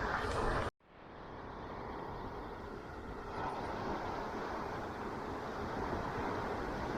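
Ocean waves washing onto a beach, a steady rushing wash that swells slightly. Under a second in, the sound cuts out abruptly and fades back up over about a second, as at a splice in the recording.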